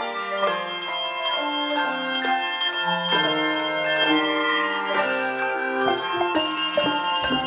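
A handbell choir playing a piece in chords: bells struck in a steady rhythm, each note ringing on and overlapping the next.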